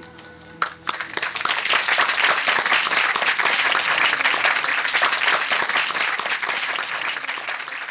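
Cinema audience applauding. The clapping breaks out about a second in, just as the last notes of the film's music stop. It holds steady and thick, then thins a little near the end.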